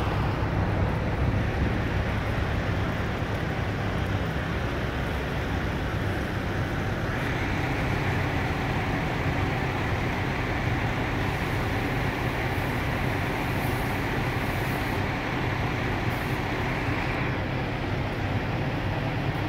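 A vehicle engine idling steadily, a low rumbling hum. A higher hiss joins it from about seven seconds in until about seventeen seconds in.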